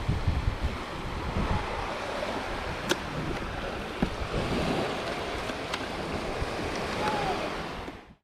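Ocean waves washing and breaking, with wind buffeting the microphone. A few sharp clicks come through in the middle, and the sound cuts off abruptly near the end.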